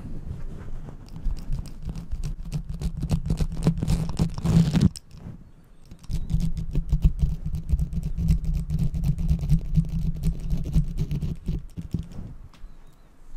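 Hair clippers cutting close to the microphone: a steady low hum under a dense run of rapid clicks. The hum breaks off for about a second around the middle, starts again, and dies away near the end.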